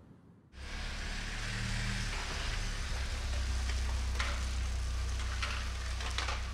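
Street traffic: a steady low rumble and tyre hiss as a car drives past, starting suddenly about half a second in, with a few short sharp ticks near the end.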